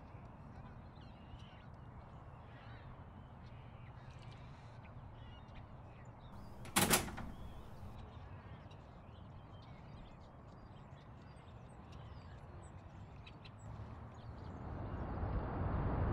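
A motel room door shutting once, sharply, about seven seconds in, over quiet room tone with faint bird chirps. Near the end a low rumbling noise swells in.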